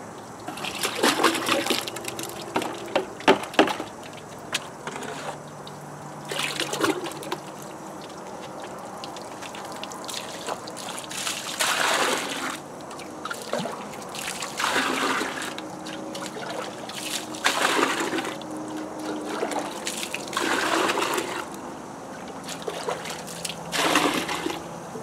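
Thick muddy slurry of finely ground ore slimes scooped up in a small container and poured back into plastic buckets, splashing and gurgling in several separate pours, as the slimes are thinned with water so they flow like a liquid.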